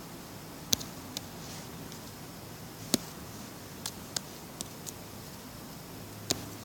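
Scattered sharp clicks, about eight of them at irregular intervals, from computer input while digital painting, over a steady low hiss.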